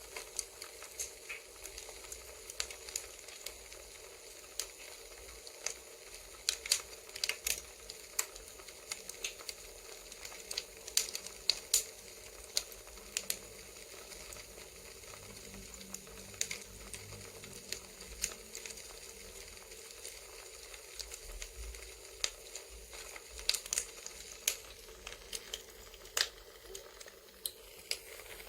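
Crackling campfire ASMR: irregular sharp pops and snaps over a steady hiss.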